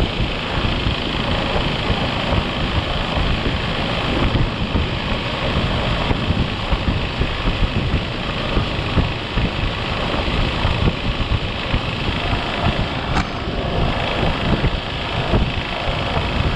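Rooftop RV air conditioner running after starting through its new soft start: steady, loud fan and compressor noise. The slightly bent squirrel-cage blower wheel is vibrating.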